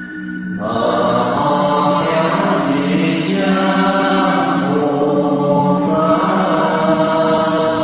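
Voices chanting together in a slow Buddhist devotional chant to Manjushri Bodhisattva, over a sustained musical drone; the chanting comes in fuller about a second in.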